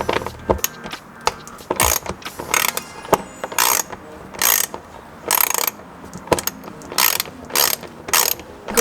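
Socket ratchet clicking in repeated short bursts, one or two strokes a second, as 10 mm bolts are undone from the car's plastic undertray.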